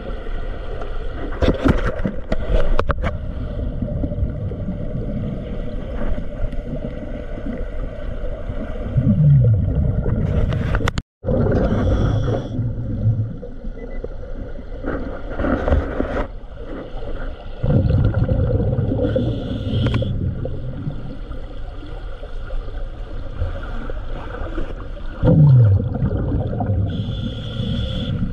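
Underwater sound of a scuba diver breathing from a regulator: gurgling bursts of exhaled bubbles every few seconds over a steady hum.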